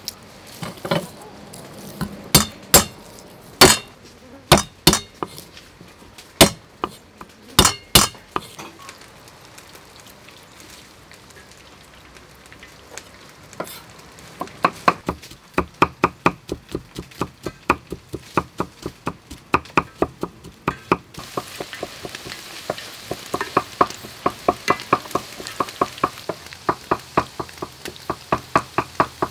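Cleaver striking a thick round wooden chopping block: scattered loud knocks at first, then rapid, even chopping at about four strokes a second. From about two-thirds of the way through, hot oil sizzles as chicken wings deep-fry, with the knocking still going.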